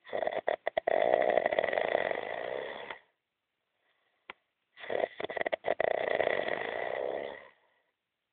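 A man snoring heavily in his sleep: two long snores of about three seconds each, a pause of nearly two seconds between them, each opening with a quick stuttering rattle.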